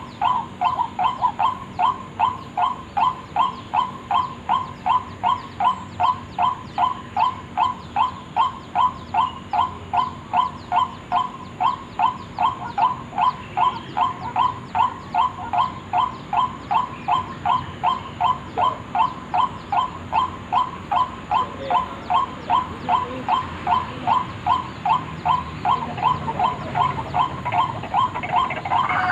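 White-breasted waterhen (ruak-ruak) lure call: a steady, unbroken run of repeated loud croaking notes, about two a second.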